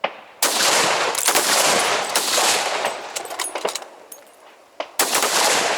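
Several centrefire rifles firing on a range line: a burst of overlapping shots about half a second in and another shot near the end, each trailing off in a long rolling echo.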